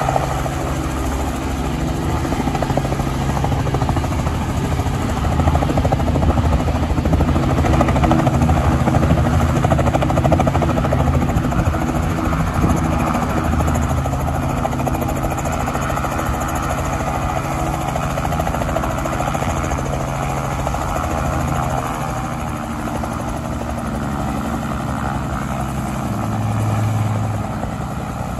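Light two-bladed helicopter settling onto the ground from a low hover, then running on the ground with its rotor still turning. The steady rotor and engine sound eases a little about two thirds of the way through.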